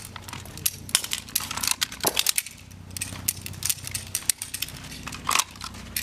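Scattered metallic clicks and clatters of service pistols being worked in a dry-fire drill: triggers snapping, slides and magazines being handled, and a magazine clattering onto the pavement, over a steady low hum.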